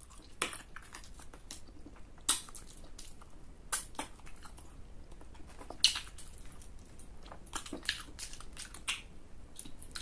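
Close-miked eating: a person chewing chicken adobo on the bone, with irregular wet mouth smacks and sharp clicks, a stronger one every second or two.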